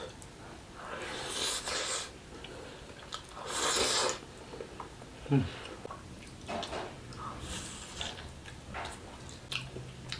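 Close-up mouth sounds of a person eating fried instant noodles: two long slurps in the first few seconds, a sharp louder sound about five seconds in, then wet chewing and lip-smacking clicks.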